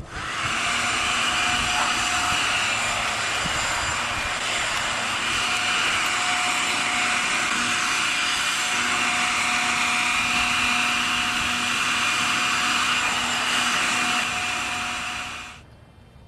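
A loud, steady engine-like roar with a few held tones through it, starting suddenly and fading out near the end.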